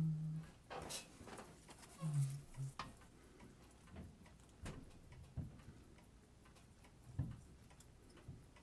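Faint, irregular clicks and taps of small watch parts and tweezers being handled on a watchmaker's bench, with two short low hums near the start and about two seconds in.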